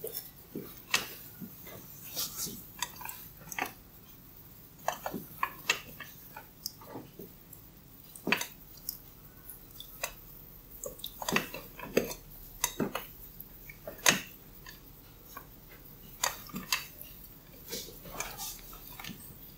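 Hair cracking during a head massage: strands of hair are twisted and tugged, giving sharp crackling pops that come singly and in quick clusters at irregular intervals.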